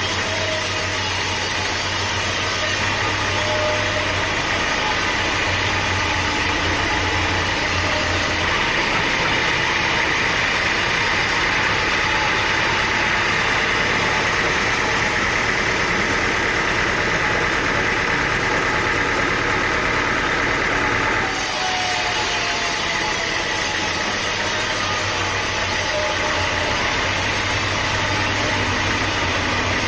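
A sawmill's engine running steadily, with an abrupt change in the sound about eight seconds in and again about twenty-one seconds in.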